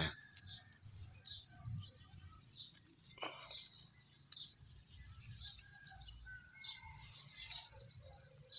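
Small birds and insects chirping in short, high notes repeated in little groups, faint and steady, over a low rumble on the microphone. One brief click about three seconds in.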